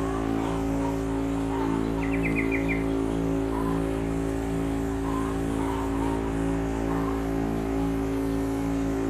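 Pump motor of a power sprayer running steadily while liquid fertilizer is sprayed through a hand spray wand. A bird gives a quick trill of about six notes about two seconds in.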